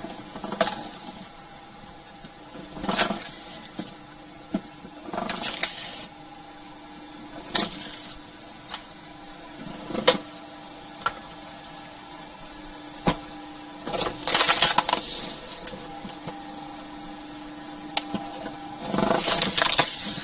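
Tree-cutting machine running with a steady hum, broken by short noisy bursts and sharp cracks, the longest bursts about two-thirds of the way through and near the end.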